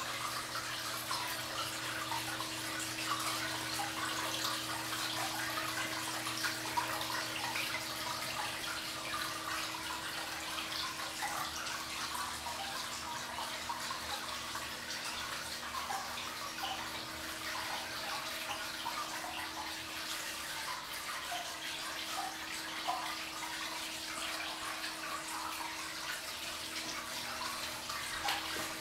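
Wall fountain with water sheeting down a slate panel into a copper basin: a steady trickling splash, with a steady low hum beneath it.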